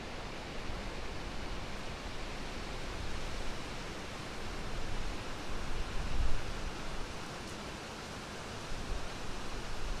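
Wind blowing through the trees, a steady rushing hiss with gusts rumbling against the microphone, strongest about six seconds in.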